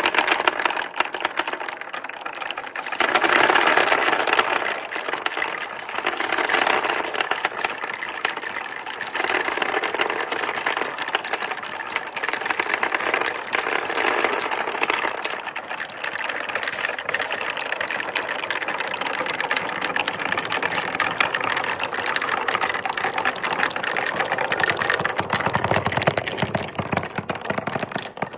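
Wooden balls rolling and clattering down a wooden marble run, a continuous rattle of rapid small knocks that swells louder in stretches as the balls drop along the slopes.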